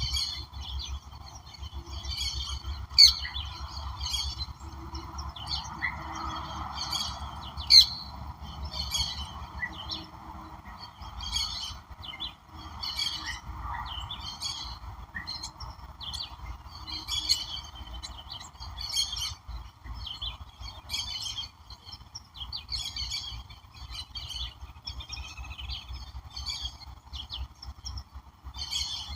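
Wild birds calling: short, high chirps repeating about once a second, over a steady hiss and a low rumble.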